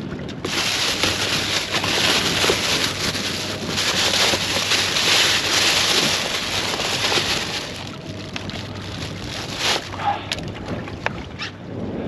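Plastic bag crinkling and rustling loudly as hands rummage inside it for about seven seconds. After that it dies down to quieter outdoor wind noise with a few light clicks.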